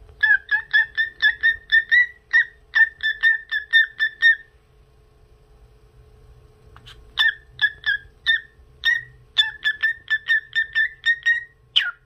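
Lutino cockatiel whistling a tune: one short clear note repeated about four times a second in two runs with a pause between, then two quick falling notes near the end.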